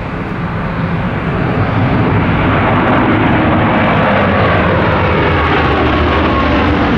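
Airbus A350 jet airliner passing close by, its Rolls-Royce Trent XWB engines' noise growing louder over about two seconds and then holding steady as a loud, broad rumble with a faint whine on top.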